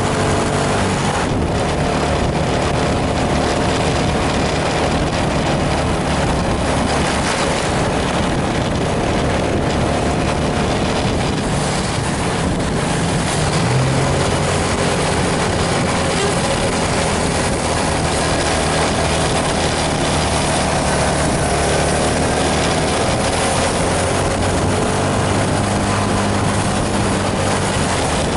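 Intercity bus diesel engine running steadily under load, mixed with a loud, even hiss of tyre and road noise.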